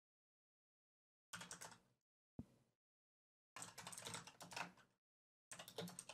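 Faint typing on a computer keyboard: three short bursts of keystrokes with gaps of silence between them, as a function name is typed into a code editor.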